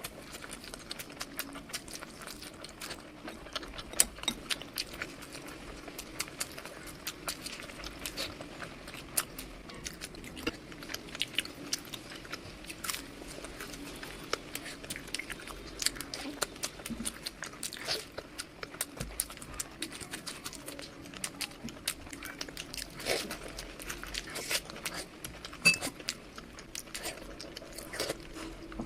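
Close-miked eating: a person chewing and biting food, a dense, irregular run of small clicks and crunches.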